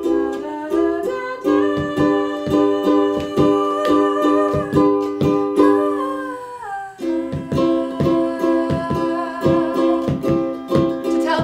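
A ukulele strummed in a steady rhythm under long held notes that change every second or two, as the accompaniment to a song; a little past the middle one high note slides downward.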